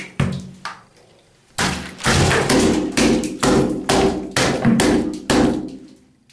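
Fists punching a cheese-and-egg-topped pizza over and over: one blow near the start, then a rapid run of about ten heavy thuds.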